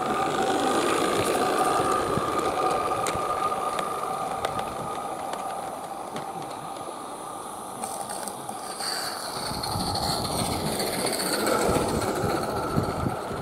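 16mm-scale garden railway goods train rolling past, its wheels running and clicking over the track, with a steady whine running through it. It swells as the wagons pass close.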